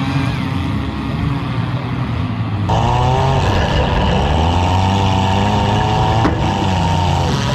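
Several compact demolition-derby cars' engines revving up and down, getting louder about three seconds in, with one sharp knock about six seconds in.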